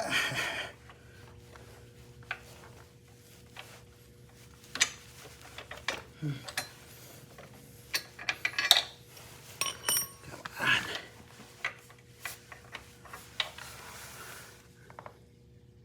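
Metal hardware clinking and tapping as bolts, nuts and spacers are handled and worked into a motorcycle frame mount: scattered sharp clicks and clanks, one of them with a brief metallic ring about ten seconds in.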